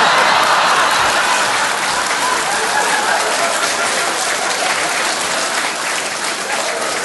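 Audience applauding after a punchline, loudest at the start and slowly dying down.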